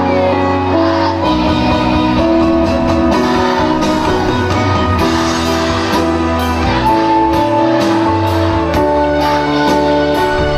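Music: accompaniment of held chords, with a regular ticking beat coming in about halfway.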